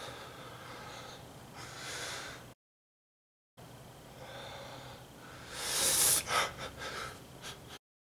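A man breathing heavily and gasping in two stretches, with a short dead gap between them. The second stretch swells to loud gasps about six seconds in and ends in a run of short, sharp breaths.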